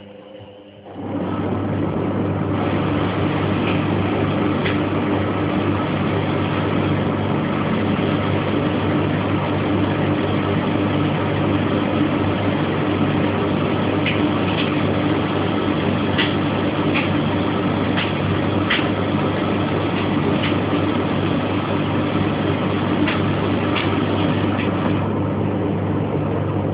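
Laundry machine motor running steadily with a low hum, starting up about a second in. A few faint light clicks come over it in the second half.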